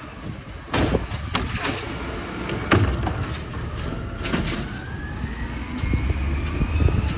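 An automated side-loader garbage truck setting a blue recycling cart back down at the curb. Several clanks and bangs from the lift arm and the plastic cart sound over the truck's low engine rumble. A steadily rising whine follows in the last couple of seconds.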